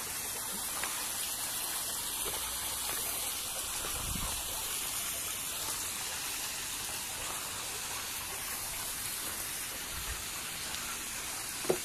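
Steady hiss of running water at a garden fish pond, with one short knock near the end.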